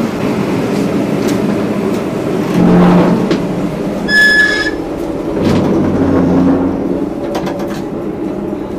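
River cruise boat under way: the steady rumble and rattle of its engine and hull, with a low hum that swells briefly twice, scattered clicks, and a short high squeak about four seconds in.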